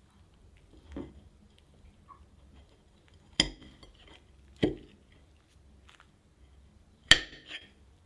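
A metal fork cutting down through a slice of galette and clinking against the plate: a soft knock about a second in, then three sharp clinks, the last the loudest.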